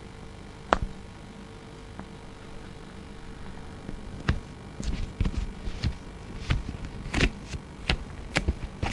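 A steady low electrical hum with one sharp click less than a second in, then irregular clicks and light knocks from about four seconds on.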